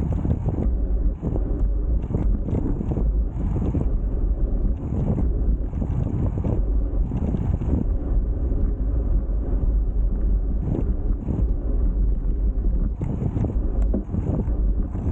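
Wind buffeting the microphone of a rider on a moving road bike: a continuous low, fluttering rumble of rushing air.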